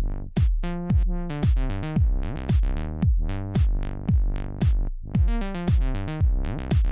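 Background electronic music with a steady drum-machine beat, about two beats a second, under synthesizer chords.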